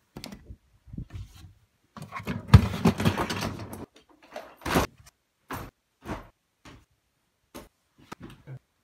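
A sliding wardrobe door rumbling along its track for a couple of seconds, with short knocks and clicks before and after it.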